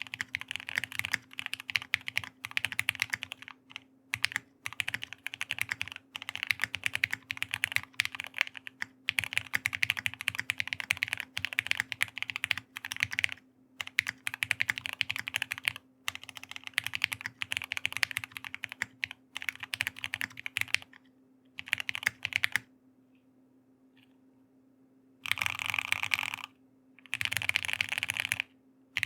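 Fast typing on a custom mechanical keyboard (Hex4.B with Durock Lavender 67g tactile switches, PBT keycaps and Poron PCB foam): dense runs of keystroke clacks broken by short pauses. Typing stops for about two and a half seconds near the end, then resumes in two quick bursts.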